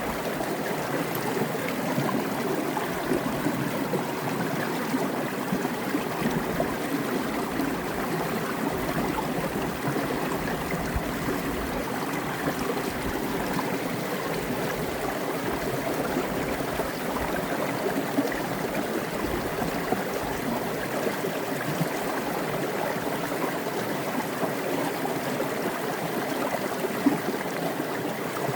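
Mountain creek water cascading down over a rock, a steady splashing and gurgling flow.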